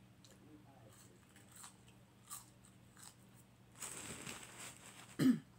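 Faint close-up mouth sounds of chewing McDonald's French fries, with scattered small wet clicks. About four seconds in comes a second or so of breathy hiss, and a brief voiced sound just before the end.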